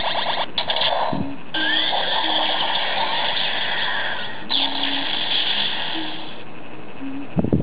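Electronic finisher sound effects from a DX Kamen Rider W toy transformation belt, played through its small speaker: a continuous buzzy synth effect that changes abruptly a few times, with a rising sweep in the middle, and a couple of knocks near the end.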